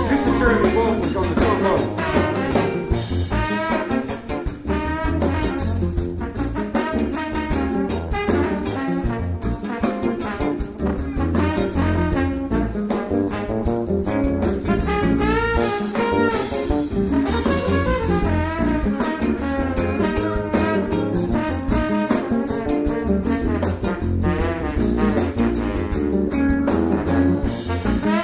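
Live funk band playing, with a trombone taking the lead line over bass and drums.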